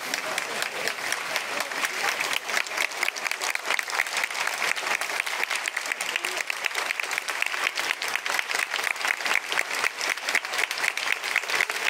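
Crowd of football supporters clapping, a dense, steady applause, with a few voices mixed in.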